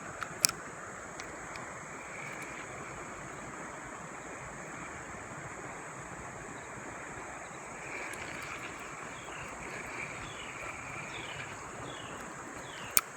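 Shallow, fast-moving river water rushing steadily over rocks. A sharp click sounds about half a second in and again near the end, and faint short chirps come and go in the second half.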